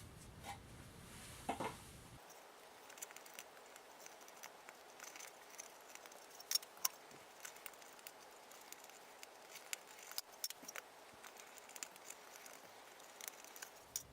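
Irregular light clicks and taps of small parts being handled, scattered throughout, with a few sharper ticks.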